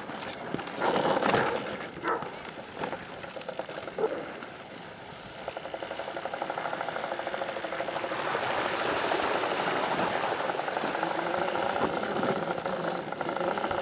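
Electric dirt bike's motor and drivetrain running with a fast, even pulse, growing louder from about five seconds in as the bike gets moving, then holding steady. A few short irregular bursts come before it.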